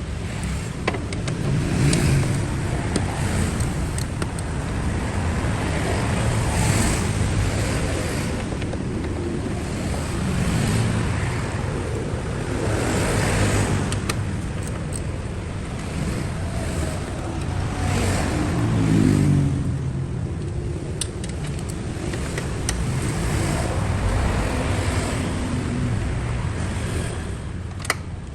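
Toyota Prius running, with continuous engine and road noise whose pitch swells and falls every few seconds as the engine speed changes.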